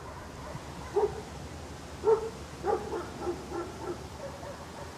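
A small dog giving a series of short barks: three louder ones about a second apart, then three softer ones in quicker succession.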